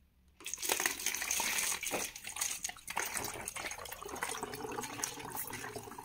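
Water poured from a plastic jug through a plastic funnel into a plastic bottle. It starts about half a second in, is strongest for the first second or so, then slowly tapers off as the pour eases.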